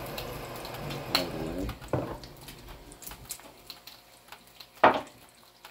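Kitchen faucet running water into a glass mason jar of wheat berries, shut off about two seconds in. Then small handling clicks and one sharp knock near the end.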